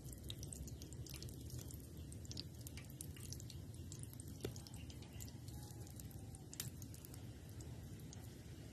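Faint wet squishing and small clicks of hands pressing and shaping a moist shredded-chicken croquette mixture, with one sharper click about four and a half seconds in, over a low steady background hum.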